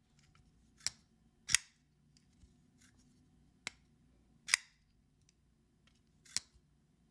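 Shirogorov Stellaris folding knife being flipped open and closed, with a sharp metallic click each time the blade snaps open or shut, five clicks in all, roughly in pairs. The knife is new and its action still needs breaking in.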